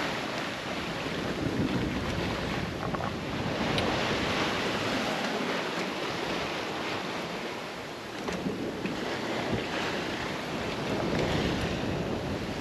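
Sea water rushing and breaking along a sailboat's hull as it sails fast through rolling swells, with wind buffeting the microphone. The rushing swells and eases several times.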